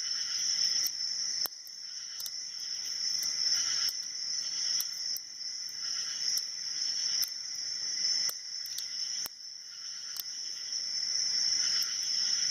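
Hook pick scraping and clicking against the security pins of a five-pin padlock under tension, with irregular small metallic clicks as pins are set, over a steady high-pitched insect trill.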